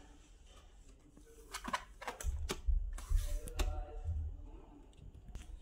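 Scattered plastic clicks and knocks from a Lenovo G400 laptop being handled and put back together, with a run of low thuds about two to four seconds in.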